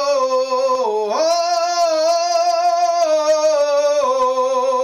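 A man singing an aboio, the wordless drawn-out cattle call of northeastern Brazilian vaqueiros, unaccompanied. One long held vowel dips and slides back up about a second in, then steps down near the end.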